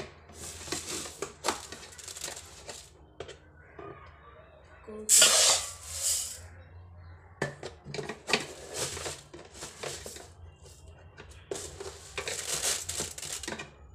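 Uncooked rice being scooped with a metal cup from a plastic jar and poured into a steel bowl: repeated rustling, rattling pours of dry grains, the loudest about five seconds in.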